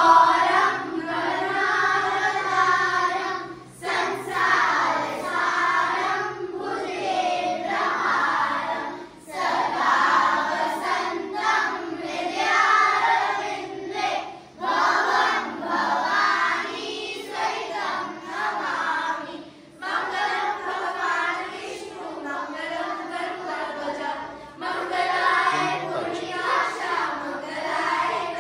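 A group of children singing a Hindu devotional chant together in unison, in phrases of about five seconds with short breaks for breath between.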